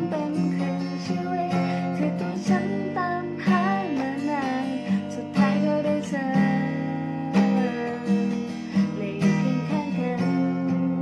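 Acoustic guitar strumming the chords of a slow ballad, with a wavering melody line gliding above it.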